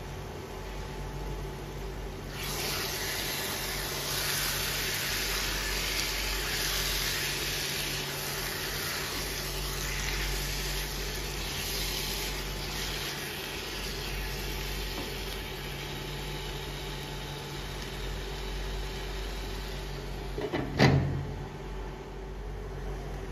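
Marinated chicken sizzling in a pot on an electric cooktop as it is stirred, over the cooktop's steady fan hum; the hiss swells a couple of seconds in and slowly eases off. Near the end the glass pot lid is set down on the pot with one loud clank.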